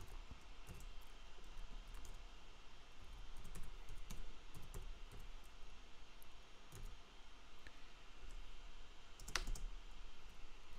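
Computer keyboard being typed on in short, irregular runs of key clicks, with one louder click about nine seconds in.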